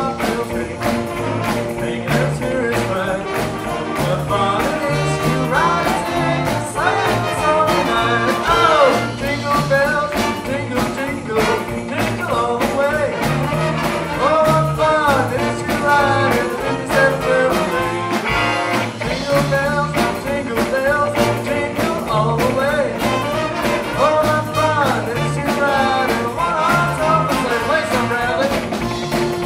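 Live rockabilly swing band playing loudly: electric guitars, upright bass and drum kit, with a horn section of trumpet, trombone and saxophones playing melodic lines over a steady bass pulse.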